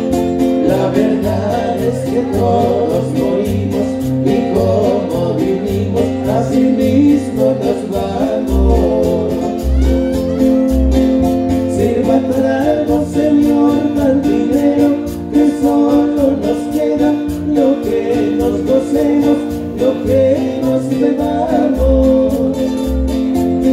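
Live música carrilera: acoustic guitars and an electric bass playing a song over a steady pulsing bass line, with singing.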